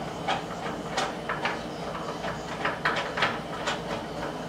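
Irregular light clicks and knocks of hand work on a wooden bunk bed frame during assembly: metal hardware and tools against the wood, about a dozen sharp taps spread unevenly.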